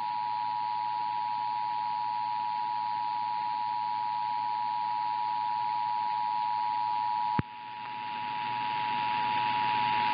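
Emergency Alert System attention signal: two steady tones sounding together at 853 and 960 Hz, heard through broadcast audio with a background hiss. About seven seconds in there is a click, and the tone dips in level and swells back.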